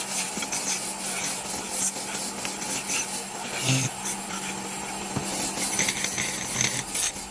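Sandpaper rubbing against a wooden cot leg: a rough, scratchy rasping that swells and fades in uneven strokes, over a steady low hum.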